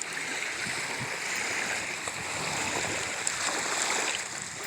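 Running water of a stream, a steady rushing.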